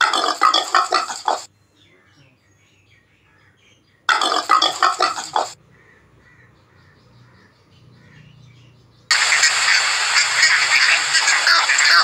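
A pig grunting in two short bouts of rapid grunts, a few seconds apart. From about nine seconds in, a loud continuous noisy clamour of animal calls takes over.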